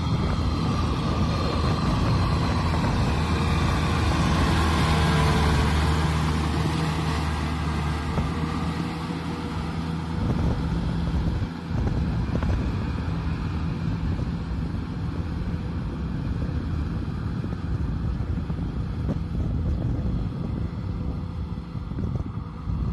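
Kubota M6040SU tractor's diesel engine running steadily under load as it pulls a disc plow through a muddy paddy field. The engine is close and strong for the first half, then after a break about halfway it sounds further off, mixed with a wider noise.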